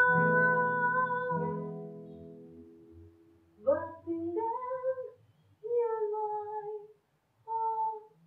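A woman singing to acoustic guitar. She holds one long note over a ringing guitar chord that fades out over the first few seconds. Then come a few short sung phrases, nearly unaccompanied.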